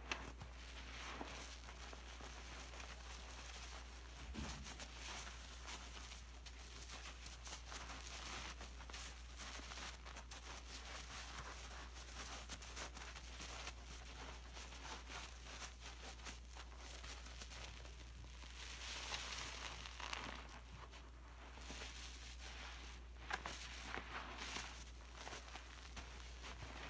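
Wet foam sponges soaked in thick detergent suds being squeezed and kneaded by hand: soft squelching with a dense crackle of many small bubbles, swelling a little with the harder squeezes.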